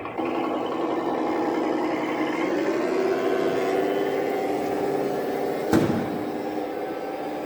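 Radio-controlled model vehicle running with a steady engine-like hum that rises a little in pitch partway through. There is a single sharp knock about six seconds in.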